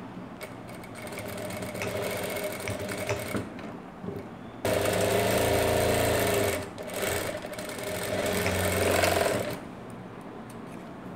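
Industrial lockstitch sewing machine stitching a cotton waistband seam in runs. It starts with a lighter stretch, then two louder steady runs of about two seconds each with a short break between, and stops about nine and a half seconds in.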